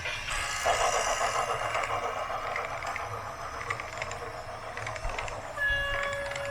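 Rapid mechanical rattling and clattering, like small gears or a toy mechanism working, loudest in the first couple of seconds. Near the end a steady two-note horn tone starts and holds.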